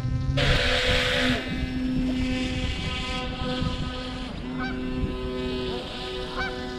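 Geese honking several times in short calls in the second half, over a steady hum of held tones, with a loud hiss from about half a second in to just under a second and a half.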